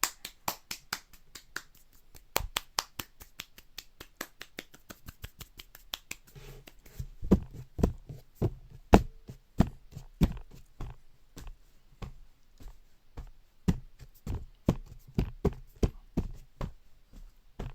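A person making sound effects with a rapid run of sharp clicks, about four or five a second; from about seven seconds in the strokes turn heavier and deeper, like thuds.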